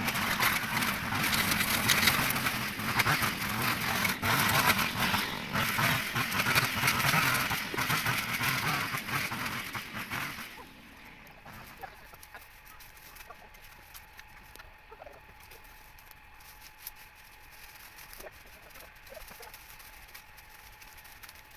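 Chickens clucking, dense and busy for about ten seconds, then dropping off sharply to a quiet background with a faint steady hum.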